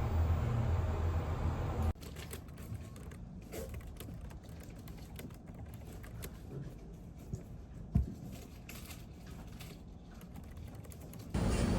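Typing on a computer keyboard: irregular key clicks, with one louder knock about eight seconds in. Before that, a steady low rumble cuts off abruptly about two seconds in.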